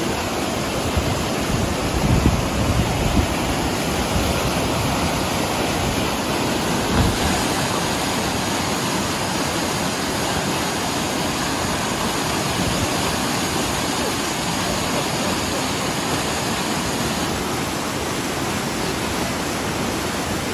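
Sheet-wave surf simulator running: a steady, loud rush of pumped water sheeting up the ramp and breaking into whitewater around the bodyboards. There are a few dull low thumps about two to three seconds in and again around seven seconds.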